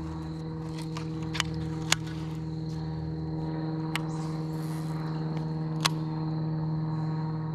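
Electric trolling motor humming steadily with a faint high whine, with four sharp clicks over it, the loudest about two seconds in.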